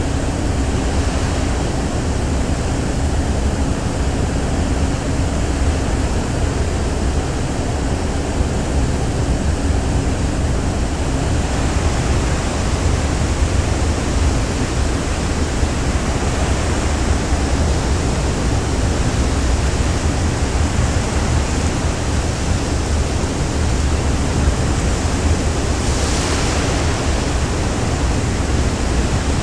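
Steady loud rushing of wind and sea heard aboard a ferry under way, with a deep rumble underneath. It grows a little brighter before halfway, with a short hiss near the end.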